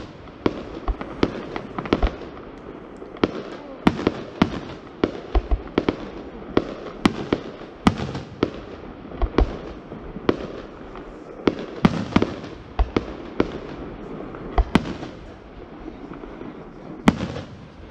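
Aerial fireworks shells bursting one after another, with sharp bangs at an irregular pace of one or two a second over a constant crackling hiss.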